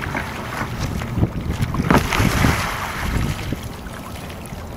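Water splashing and churning as a capsized sea kayak is rolled back upright with a paddle sweep and hip snap, the loudest splashing about two seconds in, then settling to lapping water. Wind on the microphone throughout.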